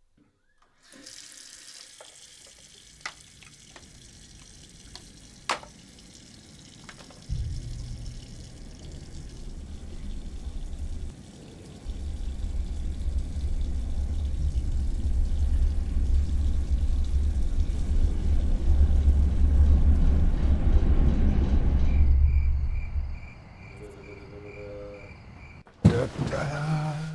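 Bathroom sink tap running, with a few sharp clicks over it. A deep low rumble comes in about a quarter of the way through, swells, and drops away near the end, followed by a few pulsing tones and a sudden loud hit.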